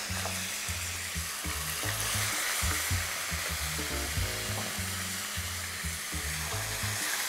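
Soy-marinated chicken thighs sizzling steadily as they shallow-fry in hot oil in a skillet, browning on one side.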